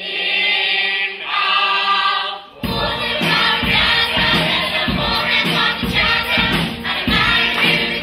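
Large chorus of stage-musical singers holding a sung chord. About two and a half seconds in, an accompaniment with a steady beat comes in and the chorus sings on over it.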